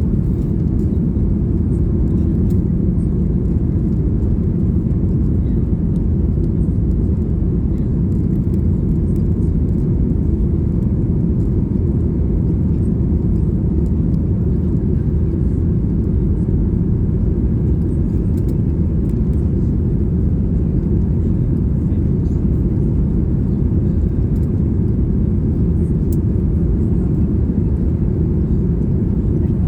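Steady low rumble of engines and airflow heard inside the cabin of a Boeing 737 MAX 8 during takeoff and climb, with its CFM LEAP-1B engines at high thrust.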